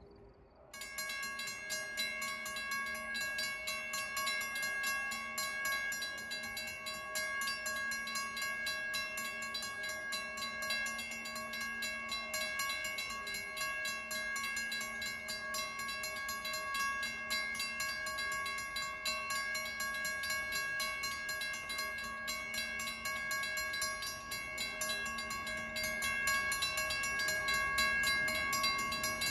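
Railroad grade-crossing warning bell starting suddenly about a second in and ringing rapidly and steadily as the crossing signals activate, warning of an approaching train.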